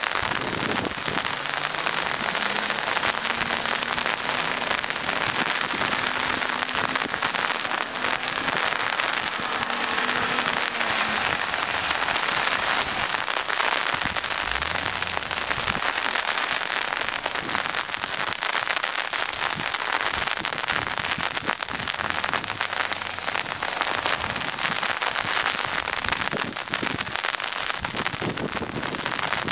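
A steady, rain-like hiss with no break. Under it, an Acura MDX's V6 engine rises and falls faintly in pitch as the SUV drives on the snow, mostly in the first ten seconds or so.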